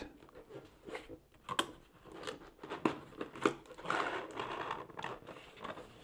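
Cardboard box being opened by hand, the inner box sliding out of its sleeve: a series of light taps and clicks of cardboard, with a longer scraping rub about four seconds in.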